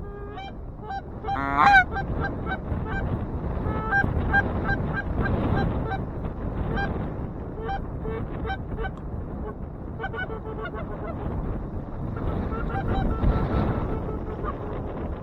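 Canada geese honking: a run of short, repeated honks, a few each second, with the loudest about two seconds in. Heavy wind buffets the microphone underneath.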